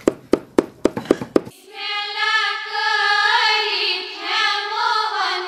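About six strikes of a flat pounder on spiced minced meat lying on a wooden log chopping block, evenly spaced at about four a second: meat being beaten to a paste for kebabs. About a second and a half in, the pounding stops and a sung melody with music takes over.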